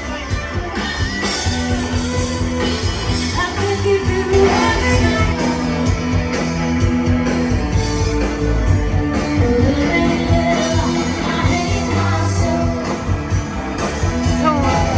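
Pop-rock song with a singer and guitar.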